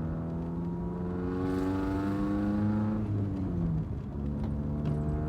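Car engine accelerating: its pitch rises for about three seconds, drops abruptly as the gear changes, then holds steady.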